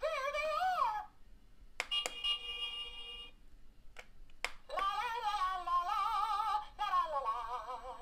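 Speaker built into a Mickey & Minnie's Runaway Railway remote control roadster toy playing short character-voice phrases from the ride: a high, warbling cartoon Minnie Mouse voice, set off by pressing the Minnie button on the remote. Between phrases come a short steady tone and a few sharp clicks.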